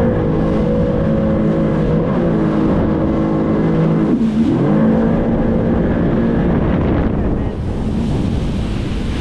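Jet ski engine running at high revs. The revs drop briefly about four seconds in and climb straight back, then the engine eases off near the end and the rush of water and wind takes over.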